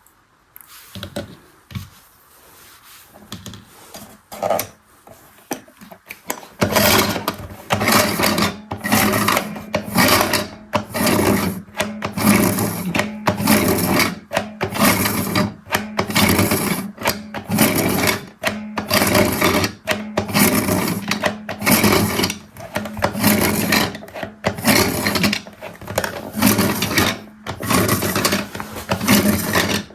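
Mini toy washing machine starting up after a few handling clicks, then running with a steady low motor hum and a rattling churn that repeats about one and a half times a second.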